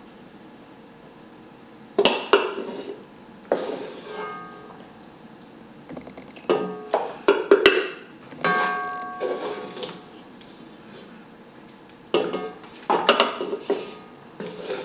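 Metal slotted spoon knocking and scraping against cooking pots while meat is lifted from one pot to another: irregular clusters of clanks, some ringing briefly. Light background music runs underneath.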